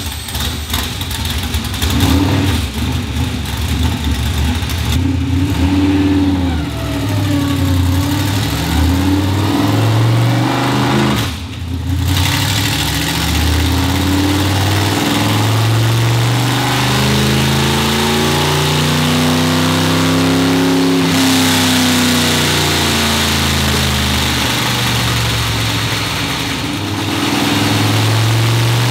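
The dirt modified's 602 crate small-block V8 runs on the chassis dyno and is revved up and down several times, its pitch rising and falling. The sound drops out briefly about eleven seconds in.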